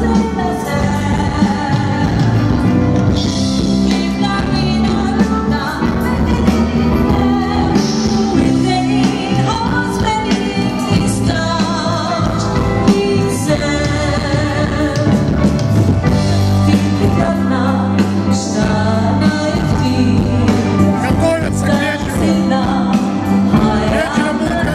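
A band playing a pop-rock song, with a woman singing lead over keyboard and electric guitar.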